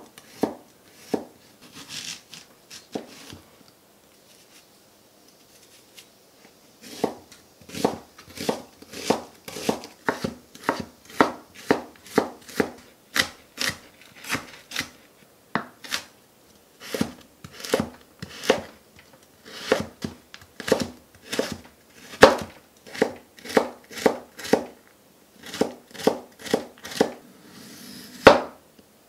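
Chef's knife chopping garlic, onion and potato on a wooden cutting board: a few scattered strikes at first, then a steady run of chopping strokes about two a second.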